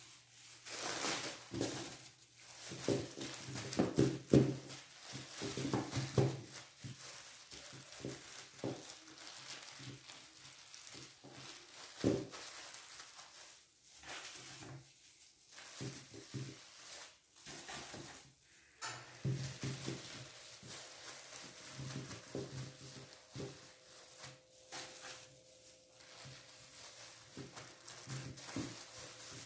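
Irregular rustling and crinkling of a thin plastic bag and plastic gloves, with soft knocks, as cubes of white cheese are picked out of a plastic bucket and packed into the bag.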